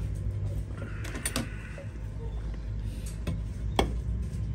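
A few light clicks and knocks from handling a plate of bread rolls and a drink can on a countertop, over a steady low hum.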